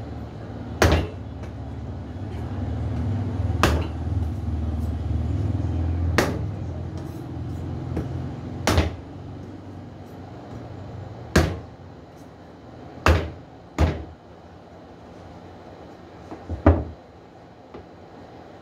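A meat cleaver chopping into a large hard-shelled green fruit on a wooden cutting board: about eight sharp chops every two to three seconds, two of them close together about two-thirds of the way through. A low rumble swells and fades in the background during the first half.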